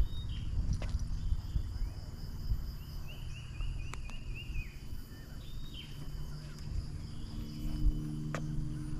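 Riverside birds calling, including a quick run of about eight short falling notes about three seconds in, over a steady high insect hum.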